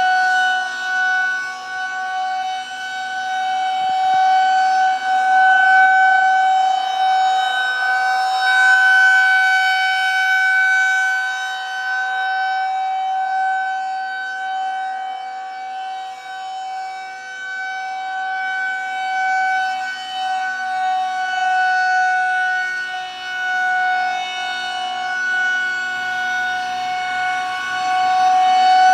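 Federal Signal 2001-130 rotating electromechanical tornado siren sounding a steady tone, its loudness swelling and fading as the horn turns toward and away.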